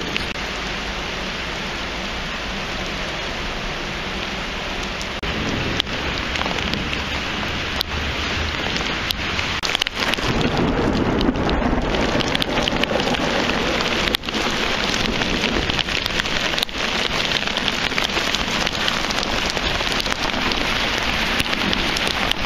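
Heavy rain pouring down onto pavement: a dense, steady hiss with occasional short knocks.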